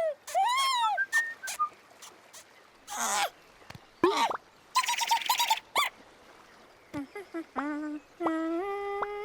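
Cartoon character vocal sound effects: short, high, squeaky calls that glide up and down, with a brief noisy burst about three seconds in and a longer held call that steps up in pitch near the end.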